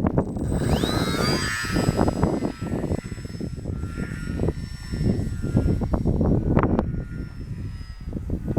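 Small electric motor and propeller of a flat foam RC model plane whining, spinning up sharply about a second in, then holding a steady high pitch that fades near the end. Heavy wind buffeting on the microphone drowns much of it, rumbling in gusts throughout.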